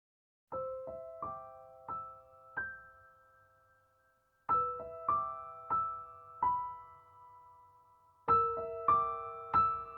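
Background music: a slow, gentle melody of single struck notes that ring and fade, played in three short phrases, starting about half a second in.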